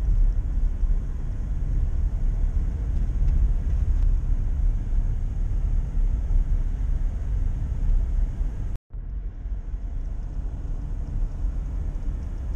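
Car driving on a dirt track, heard from inside the cabin: a steady low rumble of engine and tyres. The sound cuts out completely for a split second about nine seconds in.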